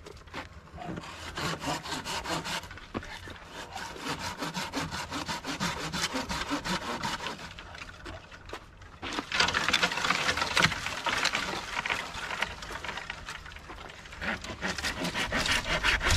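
Hand pruning saw cutting through a tree branch in quick back-and-forth strokes. It pauses briefly a little past halfway, then carries on louder.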